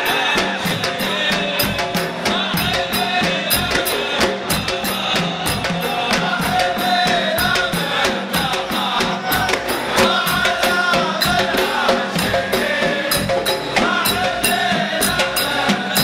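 Saudi folk troupe beating large hand-held frame drums in a fast, steady rhythm, with a chorus of men's voices singing over the drumming.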